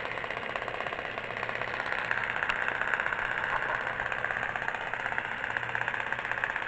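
Mould King electric motor held at a steady low speed by the controller, turning a Lego model engine at idle: a continuous whir with a fast, even ticking.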